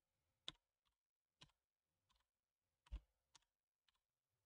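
Near silence broken by a handful of faint, sharp clicks at uneven intervals, the loudest about three seconds in.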